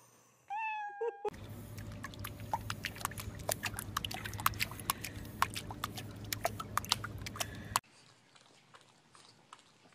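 A pug puppy paddling in a swimming pool, its paws slapping the water in quick irregular splashes over a steady low hum, cutting off suddenly near the end. Just before the splashing, a short high call that falls in pitch.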